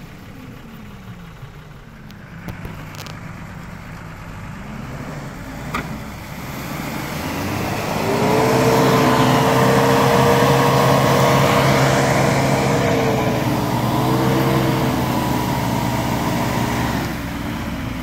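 Off-road 4x4's engine running low, then revving up and held at high revs for several seconds, with a brief dip in the middle. It drops back down near the end.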